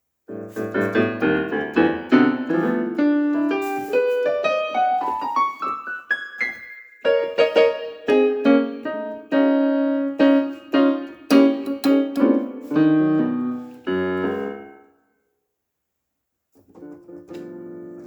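Yamaha electronic keyboard played in a piano voice, as a test during repair. Chords come first, then a rising run of notes up the keyboard, then repeated notes and chords. The playing stops about fifteen seconds in, and a short phrase follows near the end.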